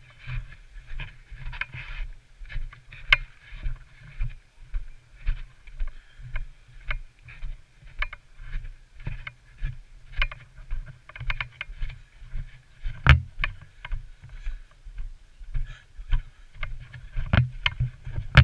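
Footsteps of someone walking steadily, a dull thud about twice a second, with gear rustling and a few sharp clicks, the loudest about 13 seconds in.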